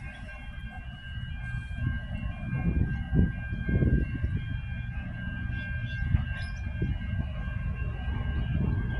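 3000-class diesel railcar set approaching on a curve, its wheels giving a steady high-pitched squeal, with further squeal tones above it coming and going, over a low rumble that swells about three to four seconds in.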